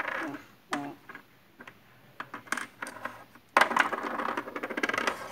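A die rolled onto a wooden floor, clattering in a quick run of small clicks that starts suddenly about three and a half seconds in. Lighter scattered clicks come before it.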